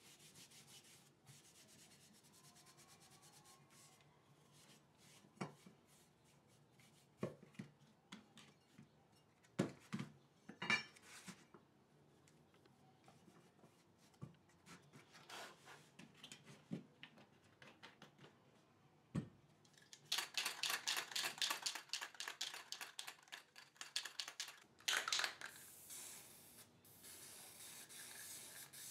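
A strip of steel angle iron being handled and rubbed on a wooden block: scattered metal clinks and knocks on the wood, then about four seconds of fast rubbing strokes. A hiss of aerosol spray follows near the end.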